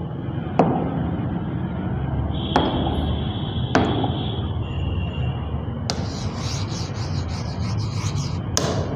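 A pen tapping the glass of an interactive smart board a few times, then scratching and rubbing across the screen as handwriting starts about six seconds in. A thin, steady high whine sounds for a few seconds in the middle.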